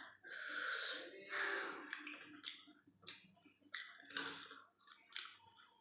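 Close-up mouth sounds of a person eating chicken curry by hand: wet chewing, lip smacks and sharp mouth clicks, with a loud breathy burst about half a second in.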